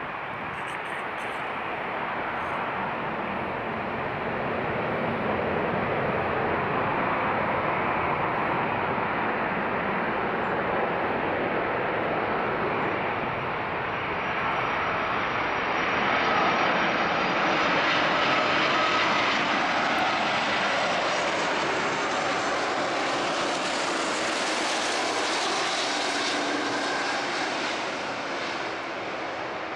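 Airbus A330-300 airliner on final approach with its landing gear down: the steady rushing noise of its jet engines grows louder during the first few seconds as it nears. In the second half, as it comes closest, the sound reaches higher and thin whining tones appear, then it eases a little near the end.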